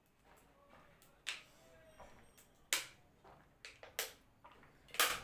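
A person gulping water quickly from a small plastic bottle, a short sharp swallow sound about once a second.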